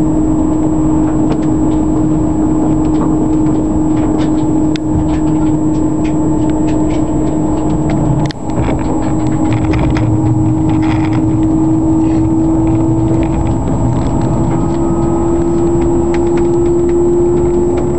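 Passenger train running at speed, heard from inside the carriage: a steady rumble of wheels on the rails with a constant whine that rises slightly in pitch in the second half. Scattered light clicks, and a brief drop in level about eight seconds in.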